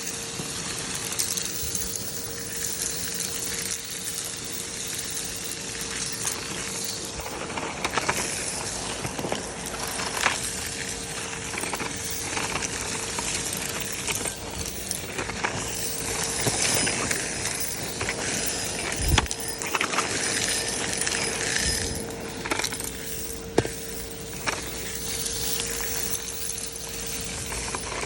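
Henry Hoover vacuum cleaner running with a steady hum while sucking up hard debris, which clinks and rattles irregularly as it is drawn through the pole, with the bag being filled up.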